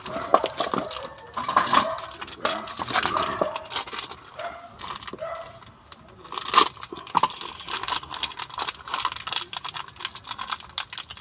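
Small metal parts and hand tools clinking and tapping in irregular clicks and knocks. One sharp metallic click about six and a half seconds in rings briefly.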